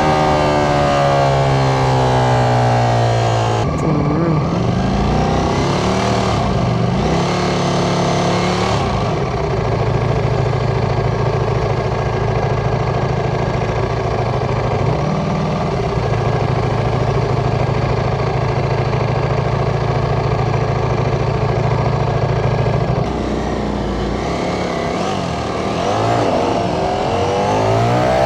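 Ducati Panigale V4 motorcycle engine under way: its pitch falls as the bike slows in the first few seconds, it revs up and down a few times, then holds a long steady cruise, and rises again as it speeds up near the end.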